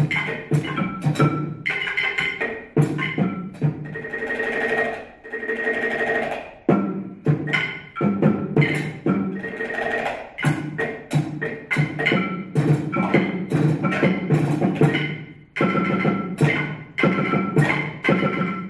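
Two percussionists playing a quick, dense pattern of strikes on a tabletop set of small percussion: toms, a foam-stuffed cowbell, a plastic container, a wood slat and a glass. Sustained rolls come about four to six seconds in and again around ten seconds.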